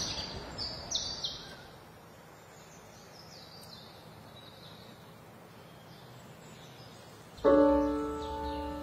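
Short high bird chirps over a quiet background hiss in the first second or so, then about seven seconds in a keyboard chord is struck and rings on as music begins.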